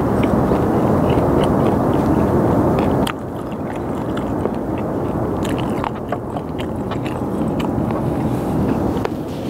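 Close-up chewing of sliced raw skate, with scattered small crunches, over a steady low rushing background noise that drops a little about three seconds in.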